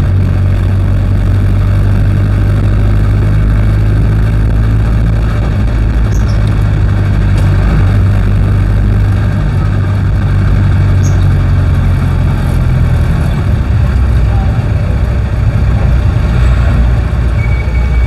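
A jeepney's diesel engine running steadily as it drives, heard from inside the cab, with road noise. The engine note drops about two-thirds of the way in.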